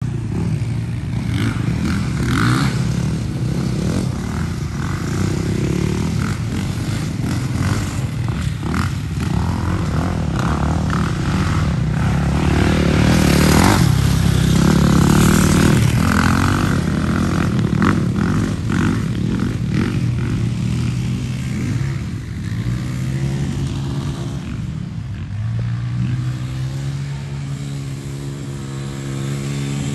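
Dirt bike and ATV engines running and revving. The loudest stretch, around the middle, is a dirt bike passing close. Later, a four-wheeler's engine holds a steady note as it approaches.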